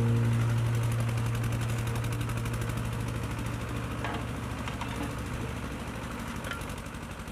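Motor-driven mincing machine running with a rapid, even mechanical pulsing while raw feed is pushed into it for the catfish. A low steady hum slowly fades underneath, and a few faint clicks of material and tools come near the middle.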